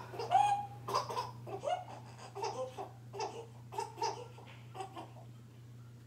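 A baby's voice in a run of short, high, repeated cries, which die away about five seconds in.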